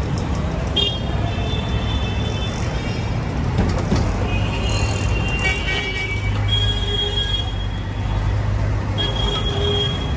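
Street traffic with engines running and vehicle horns tooting several times, over the sizzle of vadas deep-frying in a wok of hot oil.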